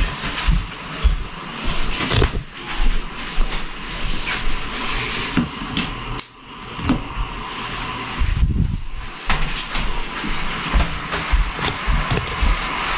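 Artificial Christmas tree being handled and shifted into place: scattered knocks, thumps and rustles of its branches over a steady airy whoosh.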